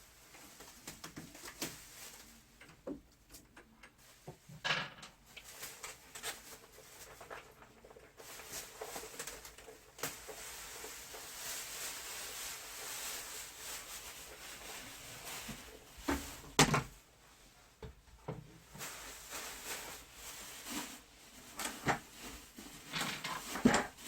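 Irregular knocks, clicks and clatter of plastic air-conditioner parts and screws being handled during disassembly work, with a stretch of steady hiss in the middle and two sharper knocks near the end.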